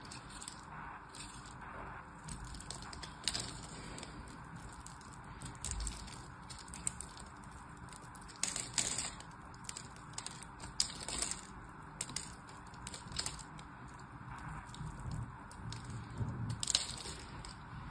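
Craft knife carving a grid-scored bar of soap: irregular crisp crackles and crunches as small cubes of soap snap off under the blade.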